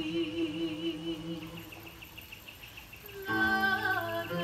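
A woman's voice holds a long wavering note over a steady low tone, fading out after about a second and a half; after a quieter lull, a new phrase of music comes in about three seconds in.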